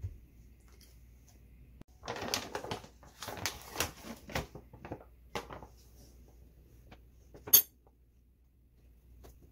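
Kitchen handling sounds: a few seconds of irregular rustling and light clattering as a small stainless mesh sieve is handled and flour spooned into it. Near the end comes one sharp metallic clink, the loudest sound, as a metal spoon is set down on the counter.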